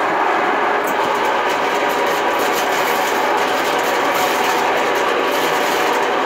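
RIDGID K-60 sectional sewer machine running steadily with 7/8-inch cable, a constant motor hum with a rattle from the spinning cable as it works to clear a clogged drain.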